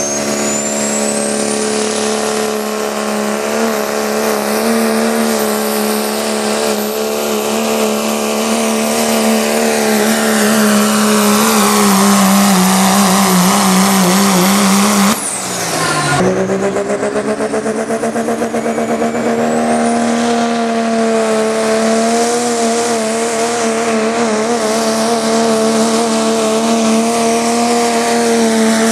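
Turbocharged Dodge Ram diesel pulling pickups at full throttle hauling a sled, a loud steady engine drone with a high turbo whistle that climbs over the first few seconds. About halfway through the sound breaks off briefly and a second truck's run takes over, its whistle climbing again.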